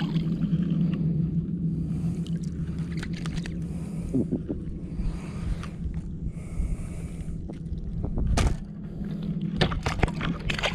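A hooked fish splashing at the surface beside a kayak, then handling noise as it is lifted and unhooked: scattered clicks and knocks, more of them near the end, over a steady low hum.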